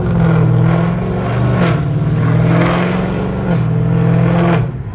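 The 6.4-litre Hemi V8 of a 2018 Dodge Charger Scat Pack with long-tube headers, heard from inside the cabin while driving. Its low exhaust drone shifts in pitch a few times and eases off near the end.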